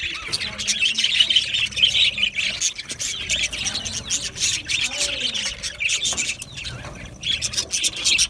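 Budgerigars chattering: rapid, overlapping high chirps and warbles that keep on throughout, easing for a moment near the end before picking up again.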